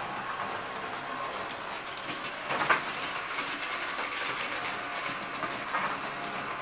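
S-gauge model trains (S-Helper Service diesels) running on the track loop: a steady whirr of small motors and wheels clicking over the rails. A sharp clunk comes about two and a half seconds in and a lighter one near six seconds, as the second train's cars and locomotive are lifted off the track and set down.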